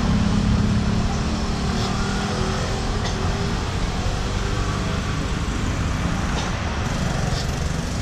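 Steady rumble of road traffic and vehicle engines, with a few faint clicks.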